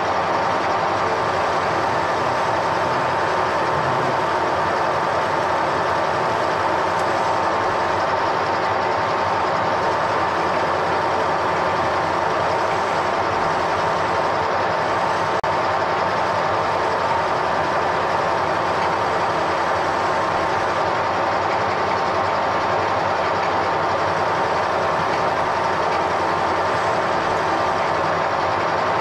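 Metalworking machine tool running steadily through a cut: a continuous mechanical drone with a steady whine, unchanging throughout.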